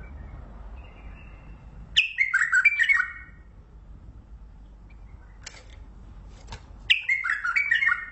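Mandalawi bulbul singing two short, rich warbled phrases, one about two seconds in and one near the end, each opening on a high note that drops into quick liquid notes.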